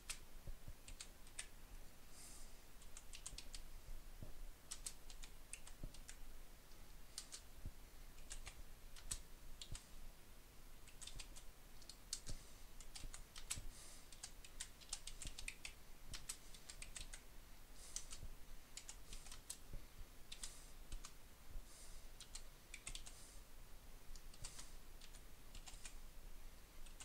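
Computer keyboard keys being typed: short, irregular clicks in runs with brief pauses between them, as lines of a BASIC program are entered.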